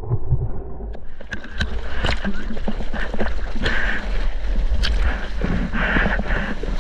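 Ocean water splashing and sloshing close around a surfboard as the surfer paddles through chop, with a steady low rumble of moving water. The sound is muffled for about the first second, then opens out into irregular splashes.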